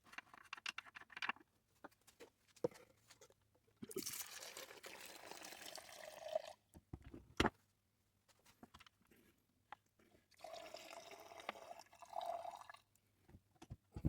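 Chainsaw fuel pouring and filling a vessel, in two pours of two to three seconds each, the pitch rising near the end of each. Sharp clicks and knocks of handling come between the pours.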